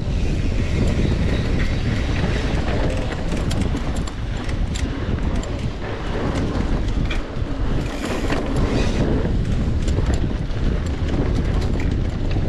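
Mountain bike ridden fast over a dirt trail: steady wind rush and tyre rumble on the camera microphone, with frequent rattling clicks from the bike jolting over roots and bumps.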